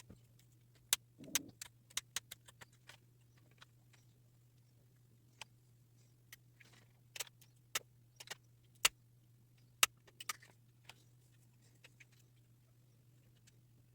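Scattered sharp clicks and taps of small hand tools working on a model locomotive's body shell, irregular and spaced out, over a steady low hum.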